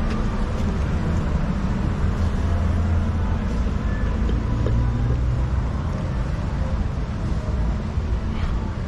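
City street ambience: a steady low rumble of traffic that does not let up.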